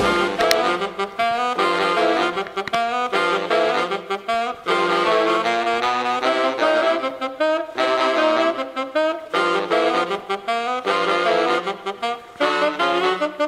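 Background jazz music, a saxophone playing the melody in short phrases with brief breaks between them.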